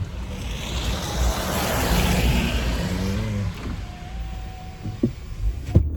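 Road traffic: a vehicle passing by, its tyre and engine noise swelling to a peak about two seconds in and then fading, over a steady low rumble.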